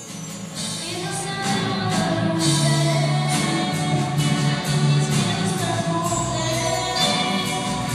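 A girl singing a devotional song, accompanied by an instrumental ensemble playing a steady rhythm. The music grows louder about a second and a half in.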